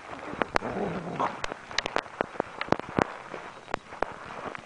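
Footfalls on a hard surface: a string of sharp, irregular taps and clicks.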